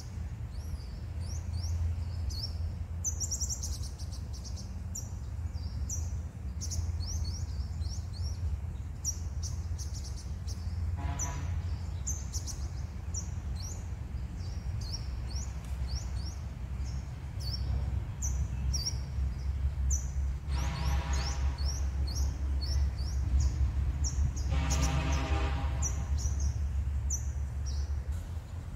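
Sunbirds giving rapid, thin, high chirps over and over, over a low steady rumble. Three times, about 11, 21 and 25 seconds in, a lower pitched tone sounds for a second or two.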